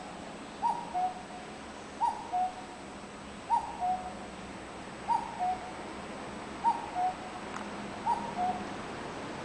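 Common cuckoo calling its two-note "cuck-oo", a higher note then a lower one, six times about a second and a half apart, over a steady background hiss.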